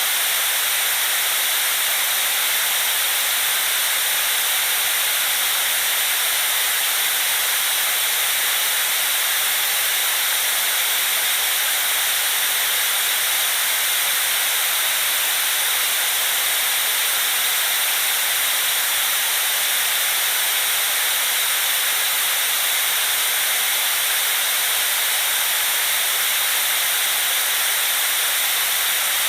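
Steady electronic white noise: an even, unchanging hiss, bright and high-pitched, with little low end.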